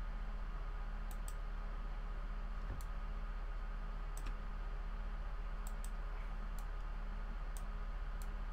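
Computer mouse clicks, about nine sharp ones spread irregularly, over a steady low electrical hum.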